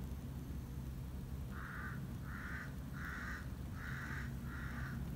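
A crow cawing five times in a steady series, each caw short and harsh, about two-thirds of a second apart, over a steady low hum.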